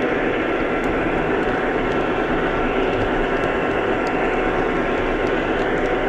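O scale model train running around the track, heard from a camera riding on the train: a steady, even rumble with faint scattered ticks.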